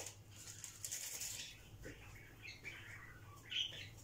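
A paper packet of baking powder being torn open and shaken over a bowl of flour: a soft crinkling rustle during the first second and a half. Faint short high chirps follow.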